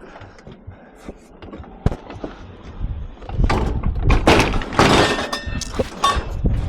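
Scrap metal clattering and banging as a heavy item is heaved onto a loaded truck: a few light knocks, then from about halfway a run of loud clanks and thuds.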